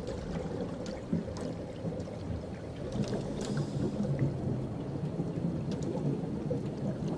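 Underwater ambience: a low rumbling wash of water noise with a few faint scattered clicks.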